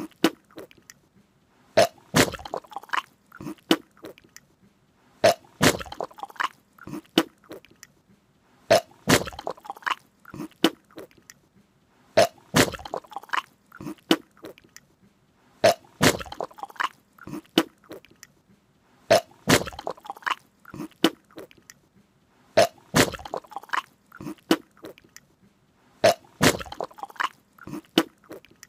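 A person's wet mouth-and-nose noises, in short clusters of clicks and smacks that repeat about every three and a half seconds.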